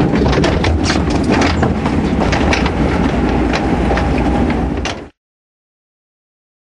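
Water-ride boat rattling and knocking as it bumps along its flume channel over a steady low rumble, cutting off suddenly to silence about five seconds in.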